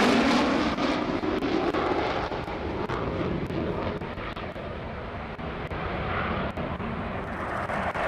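Panavia Tornado's twin RB199 turbofans running in afterburner. The jet noise is loud at first, fades over the first five seconds as the jet pulls away, then builds again near the end as it comes back past.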